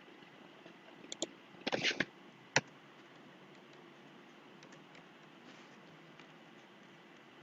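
A few computer keyboard clicks in the first couple of seconds, ending with one sharp click, then only a faint steady hum of room tone.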